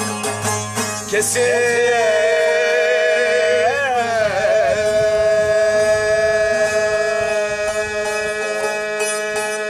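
Bağlama strummed, then about a second in a man starts singing one long held note in Turkish folk style, ornamented with a wavering turn in the middle. Light bağlama plucking returns beneath the voice near the end.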